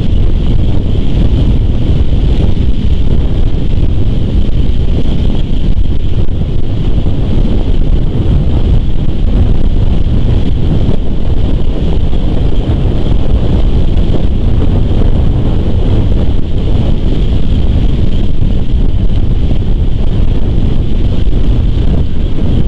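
Wind buffeting an outdoor nest-camera microphone: a loud, steady rumble without pause, with a faint steady high hiss above it.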